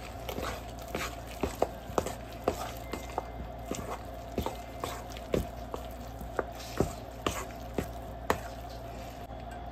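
Drop-biscuit dough being stirred in a mixing bowl, with the utensil knocking against the bowl about twice a second and stopping near the end. The dough is being worked with added water until it is thick enough to scoop. A steady low hum runs underneath.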